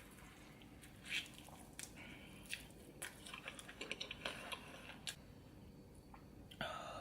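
Close-miked eating: a person biting into and chewing food, with scattered crisp crunches and wet mouth clicks, busiest in the middle seconds.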